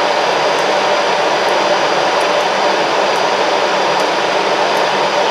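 CC 203 diesel-electric locomotive standing at idle, its engine and cooling fans giving a loud, steady blowing noise with a faint constant hum.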